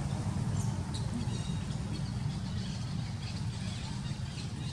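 Steady low rumble of outdoor background noise, with a few faint high squeaks about half a second and a second in.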